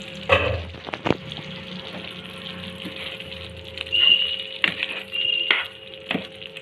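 A spoon stirring thick chicken gravy in a pan, with clacks and scrapes against the pan and two short high squeaks.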